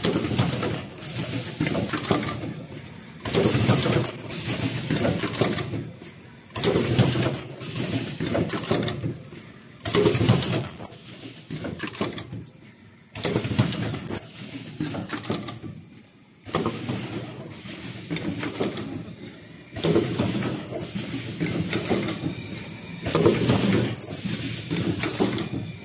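Automatic cup-mask headband welding machine running through its cycle, a burst of mechanical noise starting sharply about every three seconds and dying away before the next.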